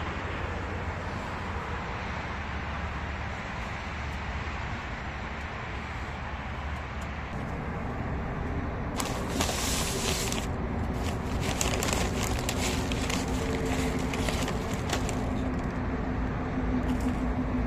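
Steady outdoor traffic rumble, with an engine hum coming in about halfway through and staying on. A short hiss follows, then a run of sharp crackles and clicks near the end.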